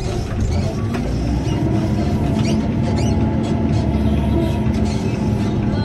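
Diesel engine of a JCB loader running steadily under load, heard from inside its cab while it works grass on the silage clamp, with light rattles on top.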